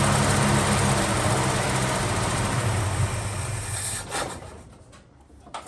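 Valiant Charger engine running steadily, then dying away about four seconds in, followed by two short clicks.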